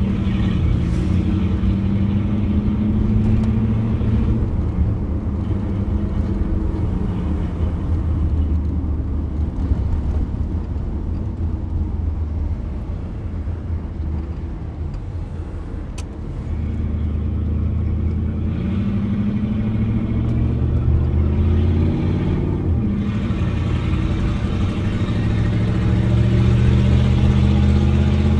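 1987 Pontiac Firebird Trans Am's 5.7-litre TPI V8, heard from inside the cabin. It runs at low revs and eases off around the middle, then accelerates with the engine note rising, a gear change, and a second rise near the end.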